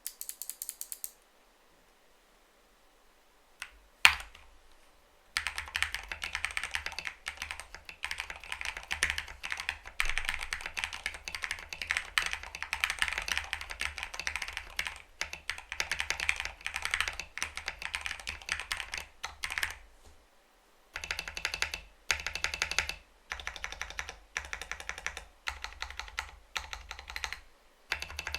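Typing on a budget 65% mechanical keyboard (Zifriend ZA65 kit) built with lubed Gateron Milky Yellow Pro switches, foam and tape mods and XDA-profile keycaps. There is one sharp clack about four seconds in. Then comes about fifteen seconds of fast continuous typing, a short pause, and several shorter bursts of keystrokes.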